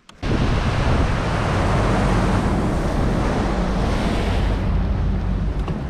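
Charger bass boat's outboard motor running at speed, with wind buffeting the microphone and water rushing past the hull.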